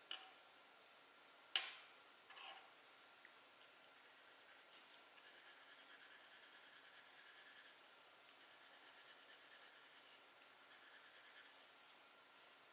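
Two sharp clicks, the louder about one and a half seconds in, then from about four seconds on the faint scratching of a drawing tool on paper in quick repeated strokes.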